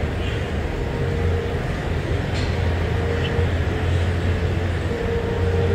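ZCU-30 diesel-electric locomotive with a Caterpillar engine approaching at speed at the head of a passenger express. It gives a steady low engine drone with a steady mid-pitched whine that comes and goes.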